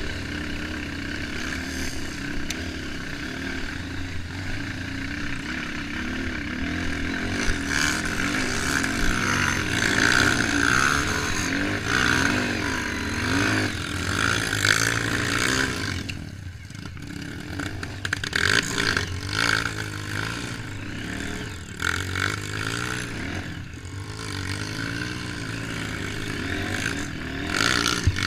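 Trail motorcycle engine running, its revs rising and falling, with a short lull a little past the middle.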